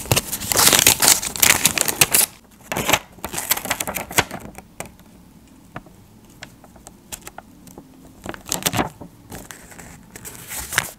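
Paper sticker being peeled from its backing with a crackling rustle for about the first two seconds, then scattered small ticks and short paper rustles as the sticker is pressed and smoothed down onto a sketchbook page.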